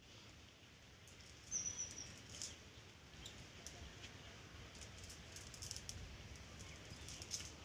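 Quiet outdoor ambience: a few short, high bird chirps, one slightly longer note about a second and a half in, over a faint low rumble.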